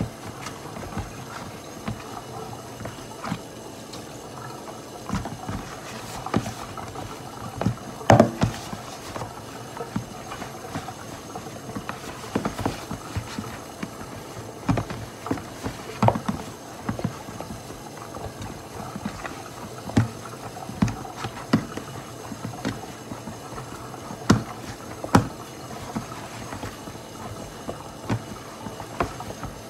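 Hand kneading flour-and-cornmeal dumpling dough in a plastic tub: irregular knocks and thuds, with a louder cluster about eight seconds in.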